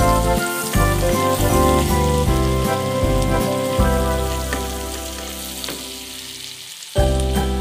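Background music with held melody notes over a bass line fades down, breaks off about a second before the end and starts again. Under it is a steady high sizzle of chopped food frying in oil in a pan.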